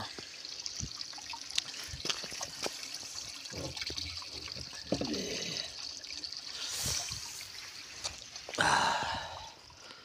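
Water trickling and dripping among rocks, with scattered small knocks and splashes as a hand reaches into the wet crevice, and a louder burst of noise near the end.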